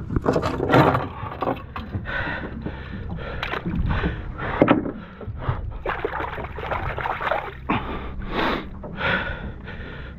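Water sloshing and splashing against the hull of a small open fishing boat in irregular surges, over a steady low engine rumble.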